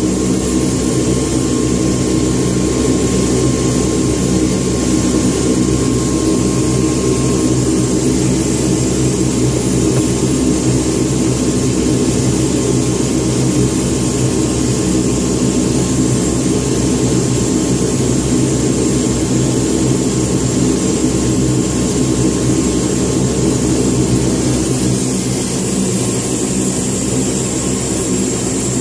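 Four Allison T56 turboprop engines of a C-130 Hercules running, heard from inside the flight deck: a steady drone with a high whine over it, easing slightly near the end.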